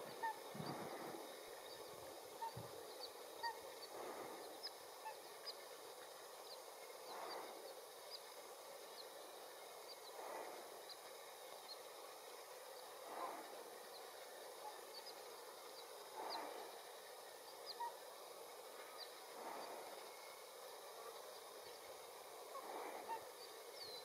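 Faint bird calls: a short call repeats about every three seconds, with small high chirps in between.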